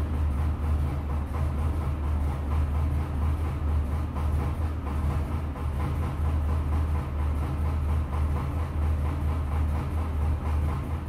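Leyland National Mk1 bus's 8.2-litre fixed-head Leyland 0.510 turbodiesel idling steadily with a clattering engine note, warming up after a cold start.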